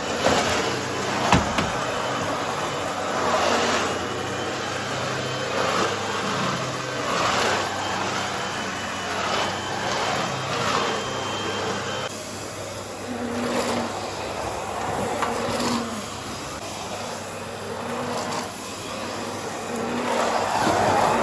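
Vacuum cleaner running with a steady low hum, its noise swelling and easing every couple of seconds. A sharp click about a second in.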